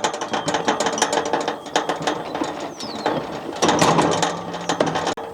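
A horse chewing grain feed, a dense, irregular run of crunching clicks.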